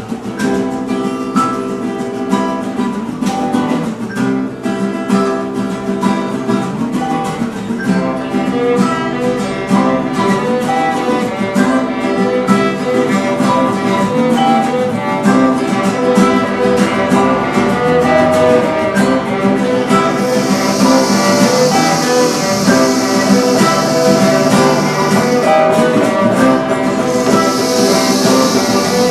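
Live instrumental music played by a primary school group, many steady notes layered together. About twenty seconds in a loud steady hiss joins the music, breaks off briefly, then returns near the end.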